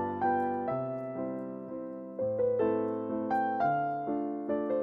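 Piano music: a slow melody of struck notes, each ringing and fading, over low held bass notes.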